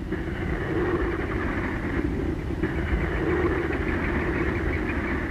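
Aircraft engine running steadily: a continuous, muffled drone that neither rises nor falls.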